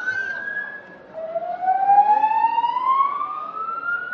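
EST voice evacuation fire alarm sounding its whoop evacuation tone through ceiling speakers: a rising sweep ends, breaks off for a moment about a second in, and a new slow sweep rises for about three seconds.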